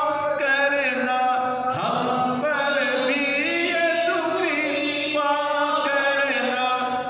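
A man singing a Hindi hymn in long, drawn-out notes that waver in pitch.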